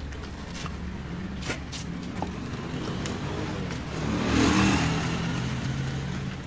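A motor vehicle passes close by: its engine sound swells about four seconds in and then eases off. Under it is a steady low hum with a few scattered clicks and taps.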